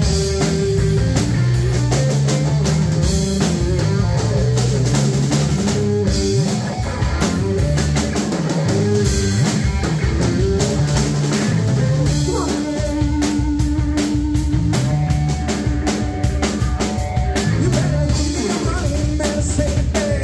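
Live rock band playing: electric guitar, electric bass and a drum kit with steady drum and cymbal hits under a moving bass line. Held guitar notes ring out in the middle of the passage.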